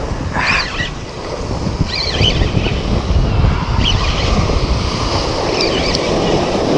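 Waves breaking and washing over a rocky shore, with wind buffeting the microphone. It gets a little louder about two seconds in.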